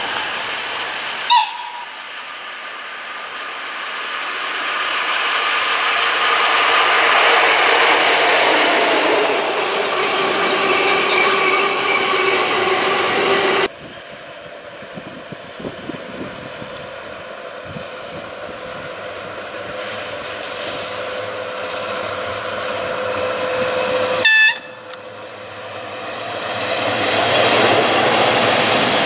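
Electric trains running on an overhead-wire main line. First comes a train approaching and growing louder. After a cut, a freight train of hopper wagons headed by two electric locomotives draws near and passes close, with a steady hum, and grows louder near the end. Two very brief loud tones sound, about a second in and again shortly before the end.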